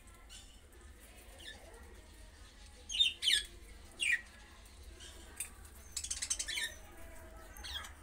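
Budgerigars calling: short sharp chirps that fall in pitch, two about three seconds in and one just after four seconds, then a quick chattering run around six seconds.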